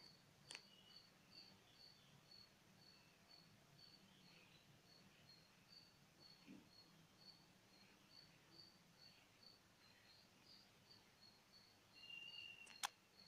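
Near silence: quiet room tone with faint, even chirping about twice a second, and two sharp clicks, a small one just after the start and a louder one near the end.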